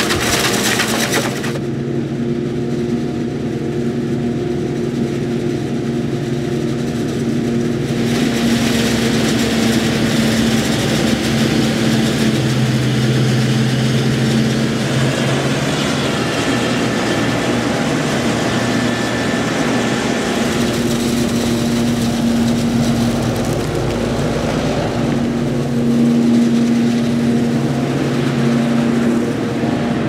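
Claas Jaguar 860 forage harvester chopping standing maize through its Kemper header: a loud, steady machine drone of engine and chopping under load.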